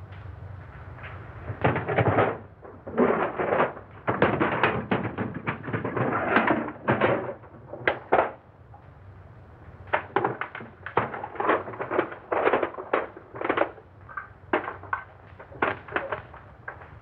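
Objects being handled and rummaged through on a bench, with irregular clattering and scraping in short bursts and sharp knocks.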